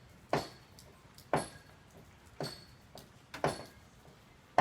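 Hammer blows on wood, repeated about once a second, from remodeling work inside the house.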